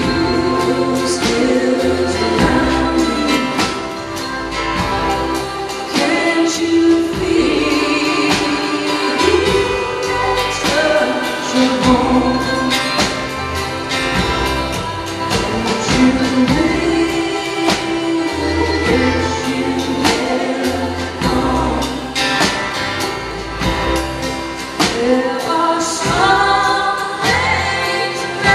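A live roots band plays a song: a woman sings lead over acoustic guitar, with other voices singing harmony and accordion and bass underneath, heard from the audience.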